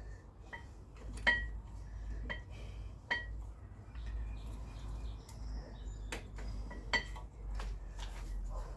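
A wrench clinking against a brake caliper bracket bolt: about seven sharp metallic clinks at uneven intervals, some with a short ring, the loudest about a second in. The bolt is being turned a little at a time in a spot too cramped for a socket.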